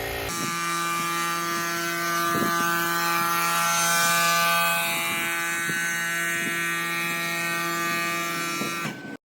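A power tool's electric motor running steadily at one constant speed, with a few faint clicks, until it cuts off abruptly near the end.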